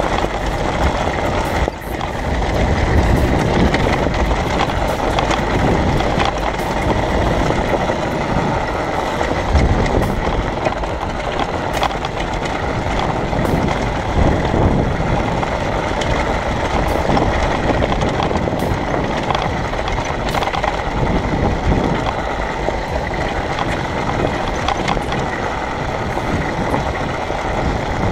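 Dirt bike engine running steadily while riding along a rocky gravel trail, with tyre noise over the loose rock.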